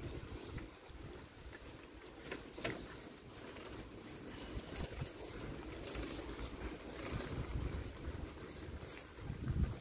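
Wind buffeting the microphone of a handheld camera outdoors, a low uneven rumble, with a few faint clicks.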